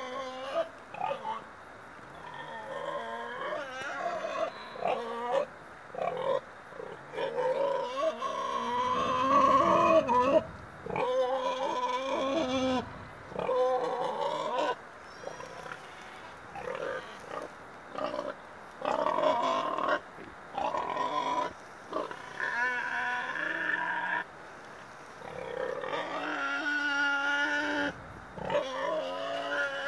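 Animals calling over and over in short, pitched calls that rise and fall, coming in clusters with brief pauses between them.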